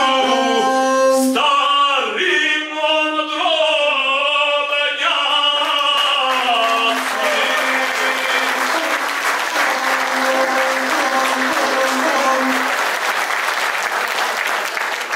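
A male epic singer singing the closing lines of a poem to his gusle, the bowed single-string folk fiddle, ending on a long held note as the performance finishes. Audience applause swells in about halfway through and carries on alone near the end.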